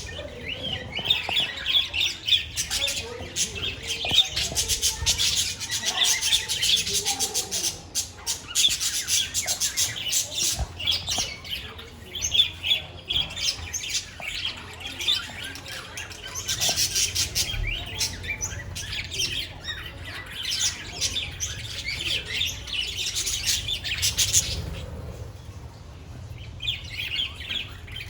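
A flock of budgerigars chattering together: many overlapping high chirps, warbles and squawks in a continuous busy stream, dropping off briefly a few seconds before the end, then starting up again.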